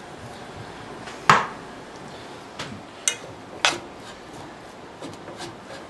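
Kitchen clatter: a few separate sharp knocks and clinks of a utensil against a metal cooking pot and cookware, the loudest about a second in.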